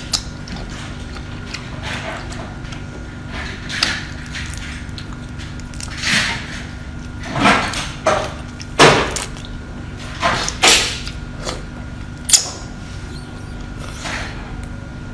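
Raw prawns in soy marinade being peeled by hand and eaten: a series of short, irregular shell and sucking noises, the loudest in the middle of the stretch, over a faint steady hum.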